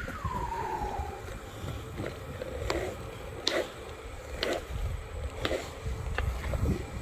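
Skateboard wheels rolling on smooth polished concrete, a steady low rumble, with a falling squeal in the first second and short sharp clacks about once a second after that.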